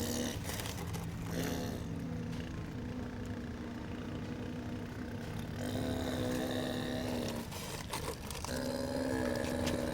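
Radio-controlled model excavator's motors running with a steady whine over a rough low rumble; the whine eases off about two seconds in and again near eight seconds, then comes back.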